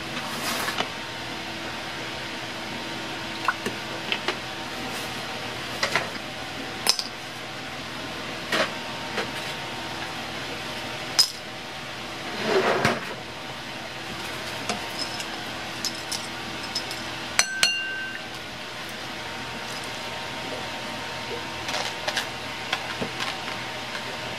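Scattered clinks and knocks of kitchen work at a ceramic bowl of chilled noodle sauce, ice cubes clinking against the bowl, with a brief rush of noise about halfway and a clink that rings briefly a little after. A steady faint hum runs underneath.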